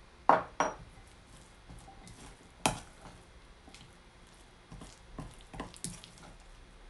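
Kitchen utensil knocking and clinking against a mixing bowl while canned chestnuts are added to sticky rice flour dough: two knocks close together at the start, a louder one nearly three seconds in, and a few lighter ones later.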